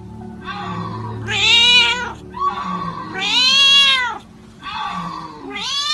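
Domestic cat giving three long, drawn-out meows, each rising and then falling in pitch, with fainter calls in between.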